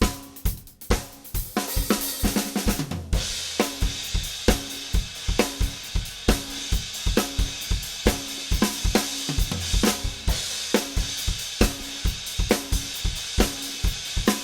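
Drum kit being played in a steady groove of kick, snare and tom hits. About three seconds in, a continuous cymbal wash joins in and carries on under the beat.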